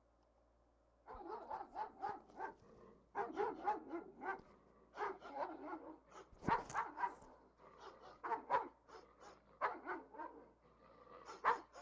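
Dog barking in quick runs of several barks, starting about a second in, with a new run every second or two.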